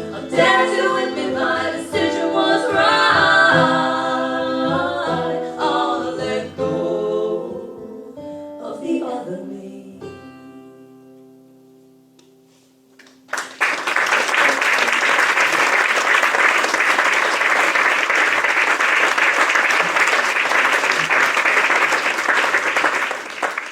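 The last bars of a folk song: voices singing in harmony with guitar, the final notes ringing out and fading to a hush. About thirteen seconds in, audience applause starts suddenly and continues steadily.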